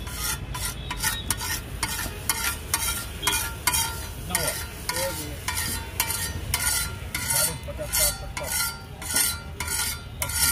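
Metal spatula scraping egg mixture across a large flat iron griddle (tawa) in quick repeated strokes, about two to three a second.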